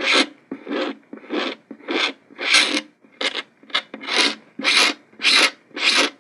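Razor blade, its corners wrapped in clear tape, scraping cured CA glue flush in a scratch on a French-polished guitar top. It makes short rasping strokes, about two a second.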